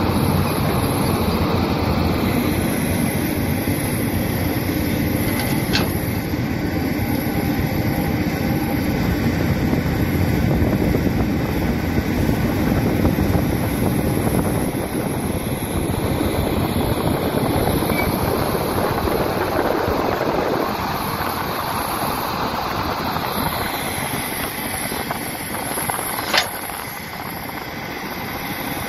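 Caterpillar hydraulic excavator's diesel engine running steadily under load as the machine dumps dirt into a dump truck, swings and digs. A faint click comes about six seconds in and a sharp clank near the end, as the bucket goes into the dirt.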